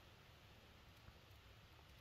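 Near silence: only faint, steady background noise.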